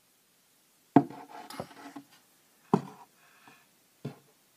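Three sharp knocks about a second and a half apart, each followed by a short rubbing scrape, as wooden stall or tack-box fittings are handled close to the microphone.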